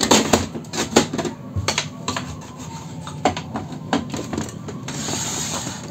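Plastic clicks and knocks as the rear paper support of an Epson L360 printer is lifted and set upright, loudest at the start and about a second in, with scattered lighter clicks after.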